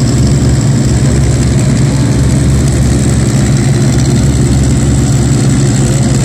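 North American Harvard's nine-cylinder Pratt & Whitney R-1340 Wasp radial engine idling steadily on the ground, a loud, even, low running sound.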